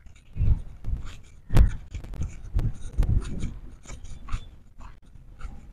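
Footsteps on a paved walkway, irregular thumps about twice a second, mixed with rubbing and scraping from the recording device being carried while walking.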